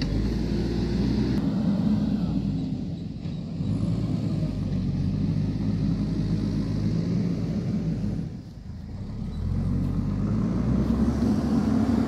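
JCB backhoe loader's diesel engine running with a low, steady rumble that eases off briefly about three seconds in and again a little past eight seconds.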